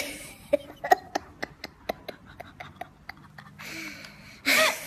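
A young girl's giggling and breathy laughter close to the microphone: a run of soft clicks with a few short voice sounds, then a breathy giggle and a brief loud laugh near the end.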